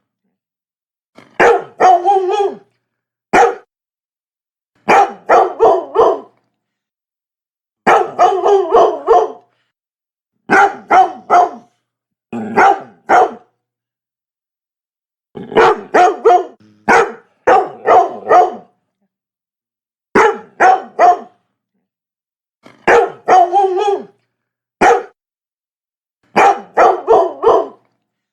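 Labrador barking in quick bursts of two to five barks, each burst followed by one to two seconds of complete silence.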